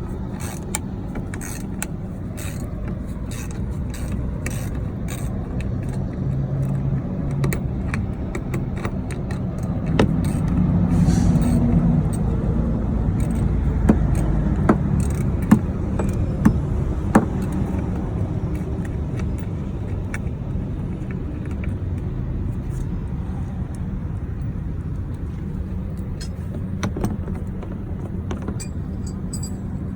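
Hand tools clinking and clicking on metal during work on a semi truck's starter wiring, with a few sharp clicks in the middle, over a steady low rumble.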